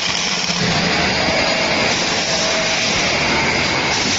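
Steady, loud machine noise, a continuous hiss with a few faint steady tones running through it.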